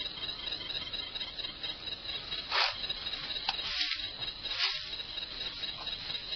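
Night-time forest ambience of insects chirring steadily in a high band, with a few brief swishes around the middle.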